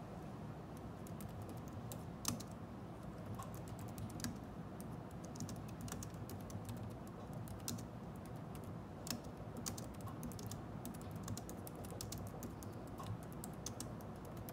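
Typing on a Logitech K380 Bluetooth keyboard's round, low-profile scissor keys: a quick, uneven run of soft key clicks with a few louder taps.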